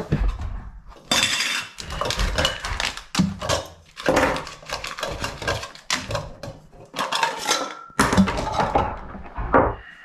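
Metal camping cookware being handled: a camp pot, its lid and stove parts clinking and clattering in irregular knocks and short rattles as they are unpacked and set down on a table.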